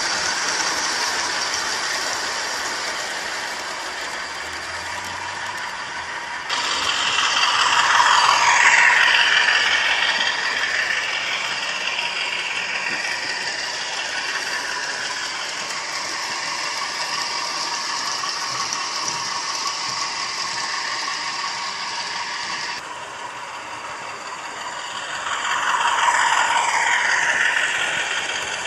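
Hornby OO gauge Class 50 model locomotive with a DCC sound decoder running a train of coaches on the layout track. Its wheels and mechanism keep up a steady clicking, rattling clatter, mixed with the diesel engine sound from the decoder's speaker. It gets louder twice, around eight seconds in and again near the end.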